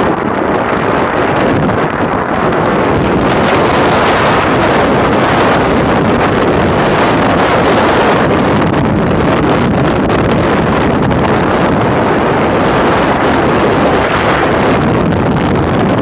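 Strong wind buffeting the microphone: a loud, steady rushing noise with no let-up.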